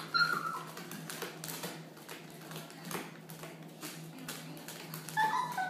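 Puppy whimpering briefly just after the start and again near the end, with its claws clicking and tapping on a hardwood floor in between.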